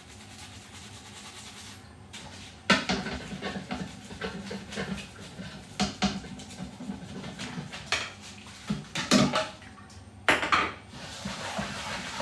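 Kitchenware clattering: dishes and utensils knocked and set down in an irregular run of clicks and clanks, starting a few seconds in, with a few louder strikes. A steady hiss comes in near the end.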